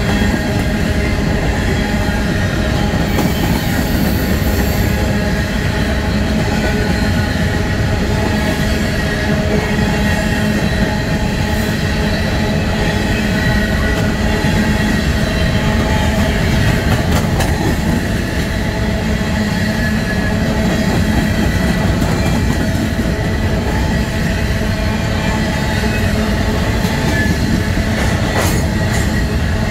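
Freight train hopper cars rolling past close by: a steady, loud rumble of steel wheels on rail, with faint steady squealing tones over it. A couple of sharp clanks come about halfway through and again near the end.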